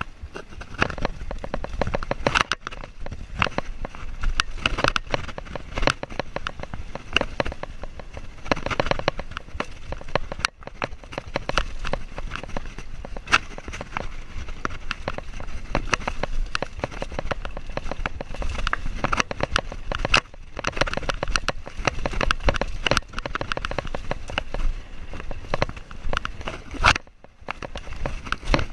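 A GoPro action camera rattling in its mount as a mountain bike rolls fast over a bumpy dirt trail: a dense, constant clatter over the low rumble of the tyres, easing off briefly twice, once about ten seconds in and once near the end.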